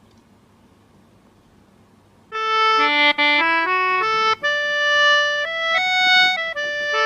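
Faint background for about two seconds, then background music comes in: a reedy melody of short stepped notes, some held longer, with brief breaks between phrases.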